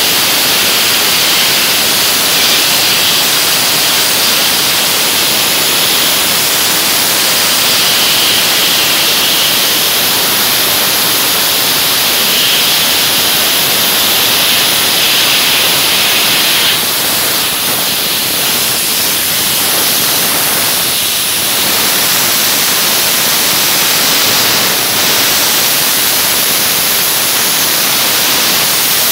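Dry ice blasting gun firing a continuous loud hiss of compressed air and dry ice pellets, blasting limescale off steel machine parts. The blast dips slightly a couple of times past the middle.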